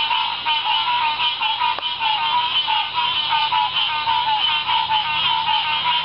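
Loud chorus of many frogs calling at once, short calls overlapping so densely that there is no break.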